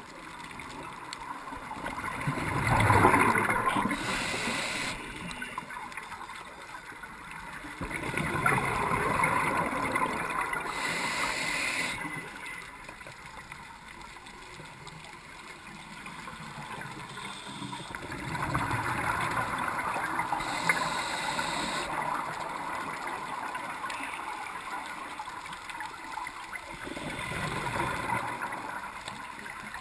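Scuba diver breathing through a regulator underwater: exhaled bubbles gurgle in slow swells every several seconds, with a short hiss between them.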